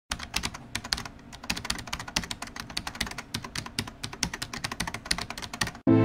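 Rapid, irregular clicking of keys being typed on a keyboard, several strokes a second. Music cuts in abruptly right at the end.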